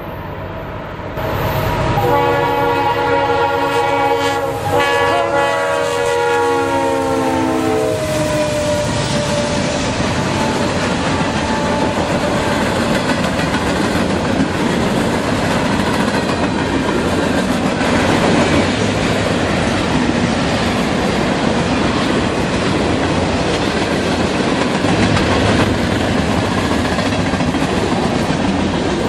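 Diesel freight locomotive's multi-chime air horn sounding a chord for about seven seconds, with a short break partway, its pitch dropping as the locomotive passes. Then the steady rumble and clickety-clack of the freight cars rolling by.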